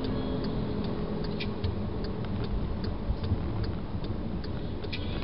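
Car interior while driving: a steady low road rumble with a string of faint, light ticks at uneven spacing, two or three a second.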